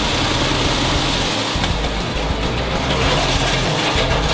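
Vibratory finishing bowl running, its load of fine stone media churning with a steady low hum and hiss as it polishes parts.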